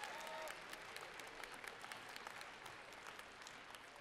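Audience applauding, with a voice or two calling out at the start, the clapping dying away gradually.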